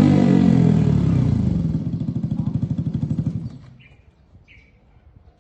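Motorcycle with a loud aftermarket 'cement pipe' exhaust, its revs falling away into separate chugging beats before the engine stops about three and a half seconds in. A few faint bird chirps follow.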